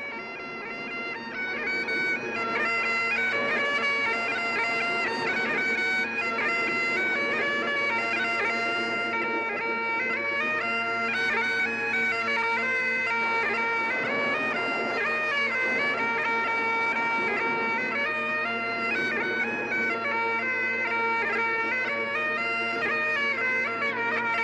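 Highland bagpipes playing a melody over steady drones, swelling in over the first two seconds and then holding a steady level.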